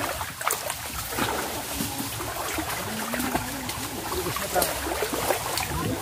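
River water running, with small splashes and knocks scattered through it.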